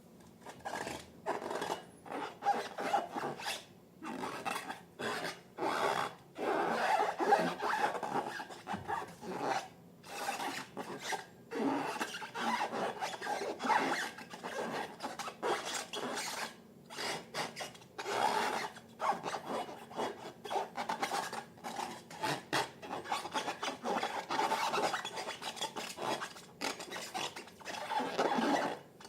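Irregular rubbing and scraping strokes from slime being worked, mixed and scraped in a container, in quick clusters with short pauses between them.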